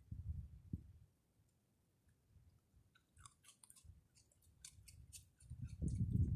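Raccoon chewing popcorn: a run of crisp little crunches in the middle, with dull low thumps at the start and again near the end.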